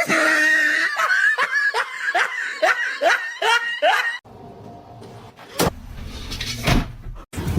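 Someone laughing in a quick run of short, falling bursts for about four seconds. It cuts off abruptly, leaving a quieter noisy background with two brief sharp sounds.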